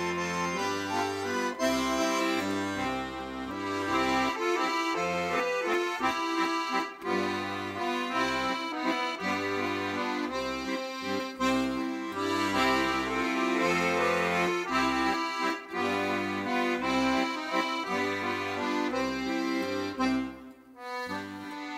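Background accordion music: a melody and chords over changing bass notes, pausing briefly near the end.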